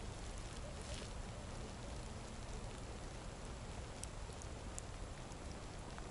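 Steady outdoor hiss of wind and falling snow on the ice, with a few faint scattered ticks.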